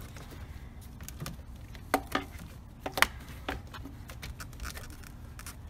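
Faint clicks, taps and rubbing as a stiff rubber fuel hose is handled and pushed into place among engine-bay parts, with a few sharper knocks about two and three seconds in.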